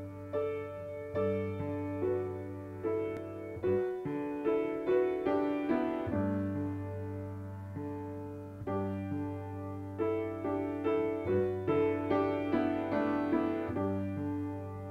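Background piano music: a melody of struck, fading notes over a held low bass note.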